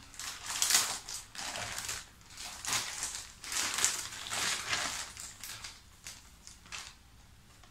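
Clear plastic bag crinkling in a run of bursts as it is pulled open and handled; the crinkling dies down about six seconds in, leaving only a few faint clicks.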